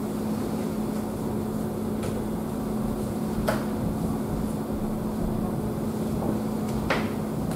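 Steady background hum of a meeting room's ventilation, with a constant low tone, broken by two sharp clicks, one about halfway through and one near the end.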